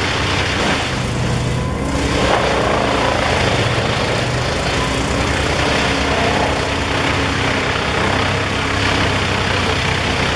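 Heavy wood-processing machine running steadily under load: a low engine drone with a dense rushing noise over it.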